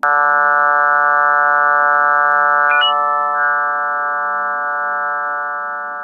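Steady electronic drone of many held tones, like a sustained synthesizer chord. It starts abruptly, has one brief high chirp about three seconds in, and fades slowly over the last few seconds. It is presented as a moon's electromagnetic signals made audible.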